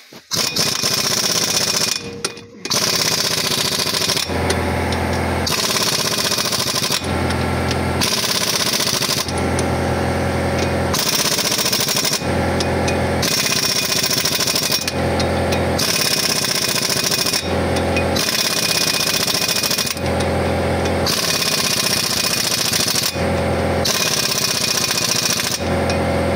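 Yato pneumatic impact wrench hammering on the flywheel bolts of a truck engine, driving them tight. It runs almost without pause, with a short break about two seconds in, and its sound alternates evenly about once a second.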